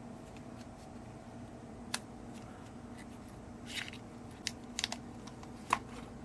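A few short, sharp clicks and taps of a knife and its black snap-fastened sheath being handled and set down, the loudest near the end, over a steady low hum.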